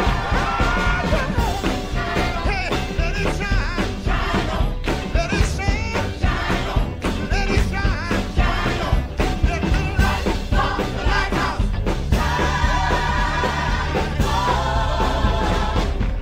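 Gospel choir singing an up-tempo song at full voice, backed by a band with steady bass and frequent drum hits.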